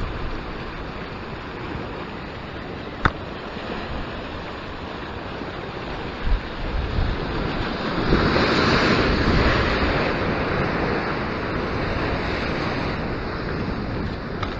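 Ocean surf surging and breaking against a rock ledge, a large wave crashing and spraying close by about eight seconds in, with wind buffeting the microphone. A single sharp click about three seconds in.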